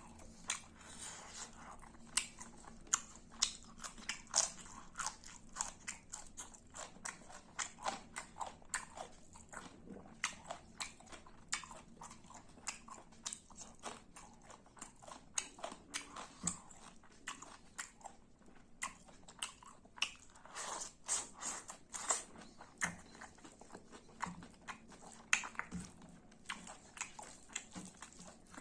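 Close-miked chewing and crunching of food, with irregular sharp mouth clicks several times a second.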